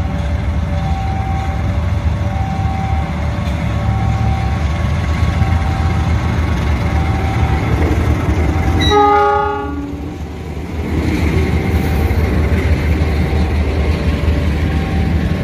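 KAI CC 206 diesel-electric locomotive hauling a passenger train past at close range: a steady low rumble of engine and wheels, with one short horn blast a little past the middle, its pitch sliding slightly lower. A two-note alternating warning tone repeats behind it, dropping out around the horn and coming back.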